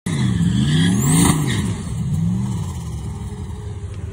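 Turbocharged pickup truck engine revving up and down about four times while standing still, lined up for a drag launch, then settling to a steadier drone.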